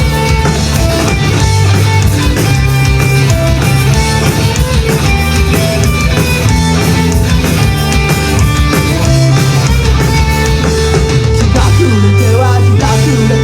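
Rock band playing loudly on stage in an instrumental passage: guitar, bass and drums with no singing.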